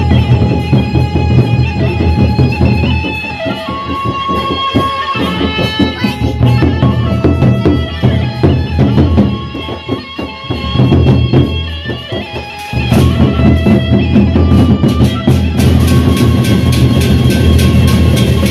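Sasak gendang beleq ensemble playing: large double-headed barrel drums beaten with sticks in a driving rhythm under a sustained suling (bamboo flute) melody. The drumming falls back about ten seconds in and comes back in full about thirteen seconds in.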